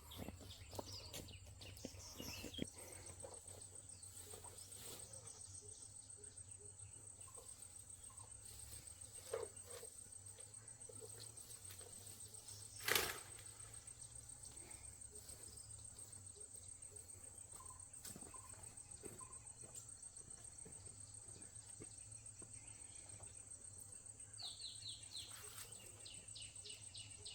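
Quiet rural outdoor ambience with a steady high-pitched insect drone. There are a few soft knocks and one sharp knock about halfway through, and a short run of quick high chirps near the end.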